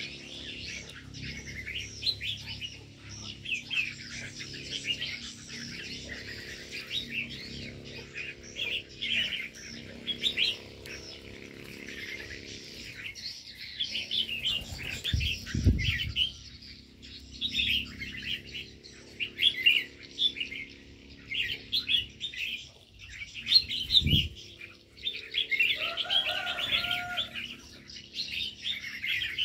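Many small birds chirping, a busy overlapping twitter that never stops. There are two dull thumps partway through and a short, lower call near the end.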